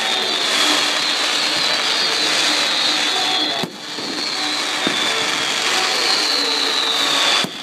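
Fireworks display: a dense, steady rush of crackling and bursts with a high whistle falling slowly in pitch, heard twice, and a few sharp cracks.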